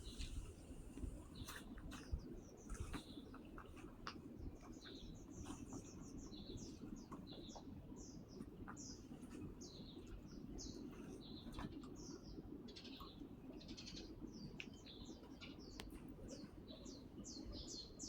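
Small birds chirping: many short, high chirps in quick succession over a steady low background rumble.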